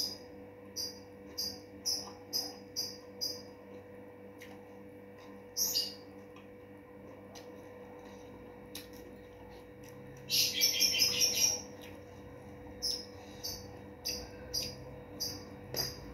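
High-pitched animal chirps, repeated about twice a second in short runs, with a louder, rapid trill lasting about a second midway. A steady low hum sits underneath.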